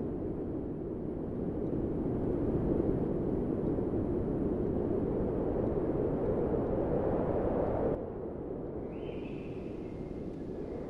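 A steady low rushing noise that drops suddenly to a quieter, thinner rush about eight seconds in. A few faint high chirps follow.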